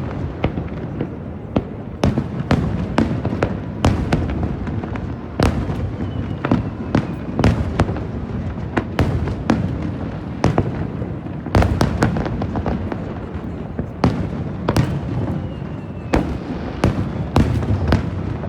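Aerial fireworks shells bursting in quick succession: many sharp bangs, several a second at times, over a continuous low rumble of reports and their echoes.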